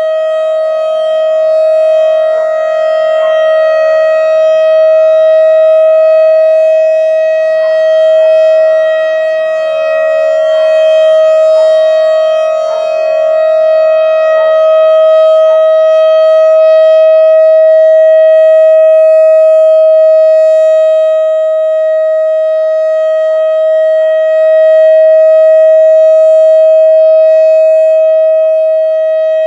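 Whelen WS-3016 electronic outdoor warning siren sounding a steady tone during a test, holding one pitch with loudness that swells and dips gently.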